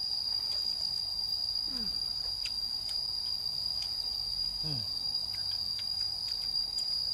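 Insects trilling in a steady, unbroken high-pitched drone, with a few faint clicks and two short low falling sounds.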